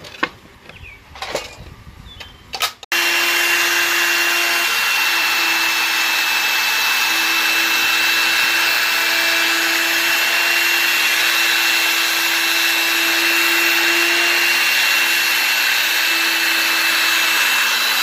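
A few knocks and clicks as an oak board is handled. About three seconds in, a wood router with a bearing-guided 1/8-inch edge bit starts cutting along the board's edge and runs loud and steady, with a constant high whine over the cutting noise.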